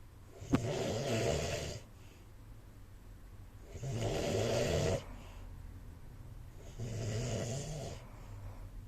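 A man snoring in slow, regular breaths: three snores about three seconds apart, each lasting about a second. A sharp click comes right at the start of the first snore.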